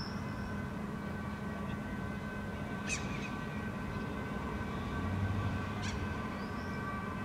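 Steady city background hum, most likely distant traffic, with a few constant tones running through it. Two short sharp sounds stand out about three seconds apart, and a faint high chirp comes near the end.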